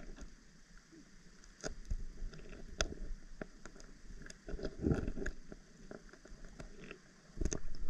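Faint water sloshing against rocks at the shoreline, with scattered light clicks and knocks of shells and stones being handled; the clicks cluster near the middle.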